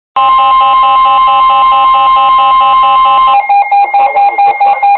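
NOAA Weather Radio warning alarm tone heralding a flash flood warning: a loud steady electronic tone with a rapidly pulsing beep beneath it. The steady tone cuts off about three seconds in and the pulsing beeps carry on.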